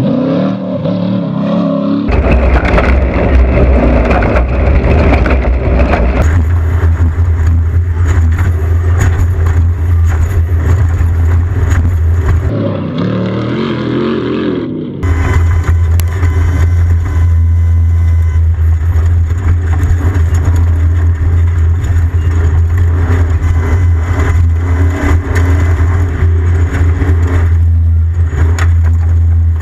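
Off-road race vehicle engine running at speed, with a heavy low rumble and a steady hiss above it. The sound changes abruptly several times, as between different shots.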